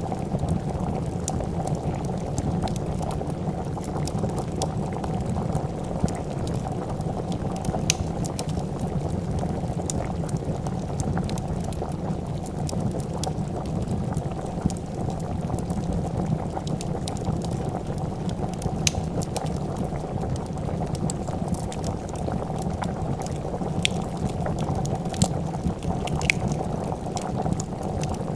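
Pot of soup boiling at a steady, dense bubble, with scattered sharp crackles and pops of a wood fire.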